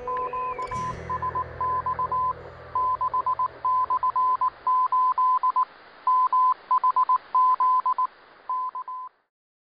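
Morse code: a single high beep keyed on and off in short and long tones over steady radio hiss. It cuts off about nine seconds in. Near the start, the last of a piece of music fades under it.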